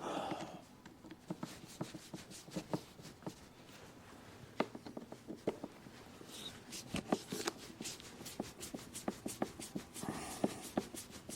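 Light clicks and taps of hand work with a screwdriver and small parts, scattered at first, then a quicker run of fairly even clicks in the second half.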